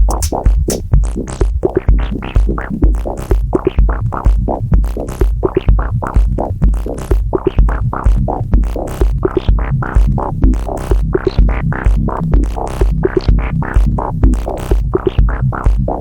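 Analogue electronic jam on an MFB Tanzbar Lite drum machine and a Dave Smith Mopho synthesizer: a steady kick drum about twice a second, with hi-hats and a repeating synth line over it.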